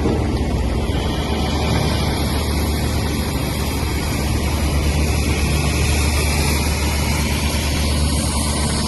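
Steam locomotive of the Darjeeling toy train running, a steady rumble with a hiss over it.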